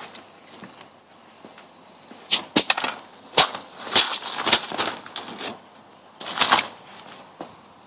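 Handling noise on a phone's microphone: a run of sharp clicks and scraping rustles, in two clusters a couple of seconds in and again near the end.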